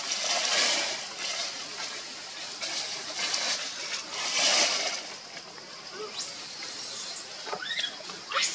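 Outdoor ambience of hissy rustling noise that swells and fades in bursts, with a thin high whistle held about a second starting about six seconds in, and two quick rising squeaks near the end.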